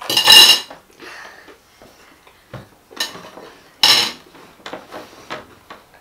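Knife and fork clattering against a plate: a loud clatter with a short ring right at the start, two more about three and four seconds in, and lighter knocks in between.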